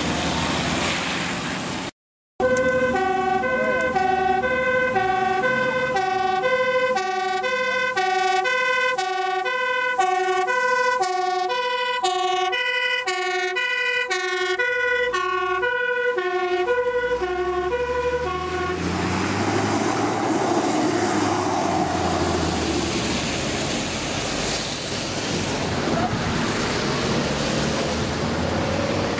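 Fire engine's two-tone siren, alternating between a high and a low note about once a second, stops about two-thirds of the way in. A steady rushing noise follows.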